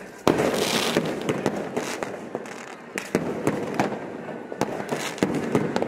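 Fireworks going off: a loud bang about a quarter second in, followed by crackling and a steady run of sharp pops and bangs.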